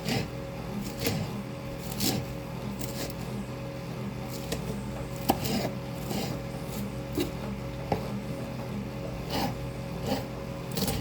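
Leafy greens being chopped, one stroke about every second, with two sharper clicks in the middle, over the steady hum of a running fan.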